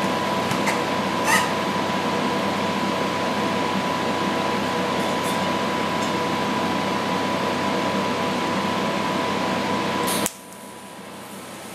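Steady fan hum and hiss with a thin high whine, and a few light clicks in the first second or so. About ten seconds in it cuts off abruptly, and a quieter sound starts to swell.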